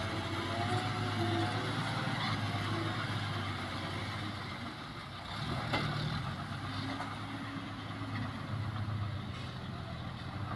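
Hyundai 5-ton dump truck's diesel engine running with a steady low drone as the truck manoeuvres, with a single knock a little past halfway.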